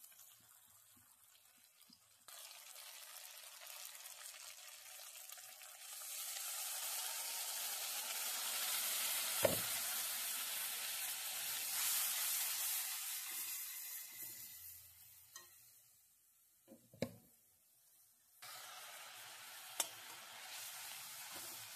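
Onions and spices sizzling in hot oil in a metal kadai while being stirred with a metal spatula. The sizzle comes in about two seconds in, is loudest in the middle, dies away for a few seconds near the end and then starts again. A few sharp knocks of the spatula on the pan are heard.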